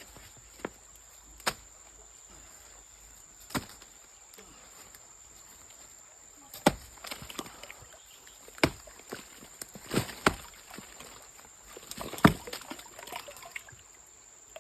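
Irregular sharp knocks and splashes, about eight of them, from river sand, stones and water being worked for gold. A steady high cricket drone runs underneath.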